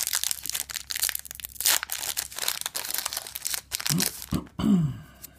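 Foil booster-pack wrapper crinkling and tearing as a pack is handled and ripped open, a dense papery crackle that lasts about four seconds. Near the end comes a short wordless vocal sound, sliding up and down in pitch.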